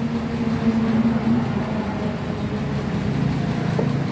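Stranger 3K amplifier's faulty channel playing through its speaker as a steady low drone with a few held tones that shift slightly partway through. The channel's sound is nasal, which the technician puts down to a fault on one of its boards, such as a resistor.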